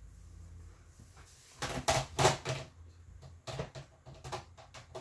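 Hard plastic CGC comic slabs being handled: a quick run of clicks and knocks, then a pause, then a second run.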